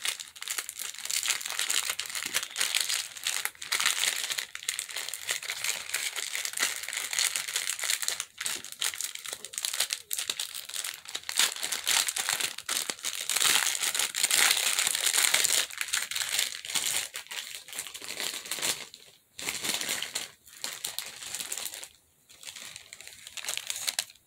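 Clear plastic bag crinkling continuously as it is handled and opened. Over the last several seconds it breaks into separate crackles.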